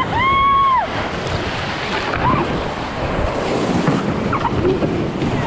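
Whitewater rapids rushing and crashing around a raft, with wind buffeting the microphone. A high, drawn-out yell rises and falls in the first second, and a couple of fainter short cries follow later.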